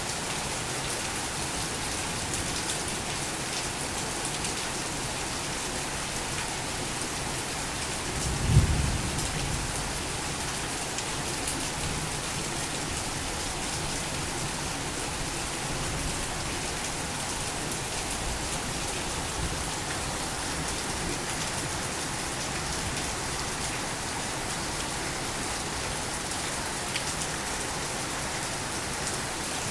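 Torrential rain falling steadily. About a third of the way through comes a single short, low rumble that dies away within a second or so.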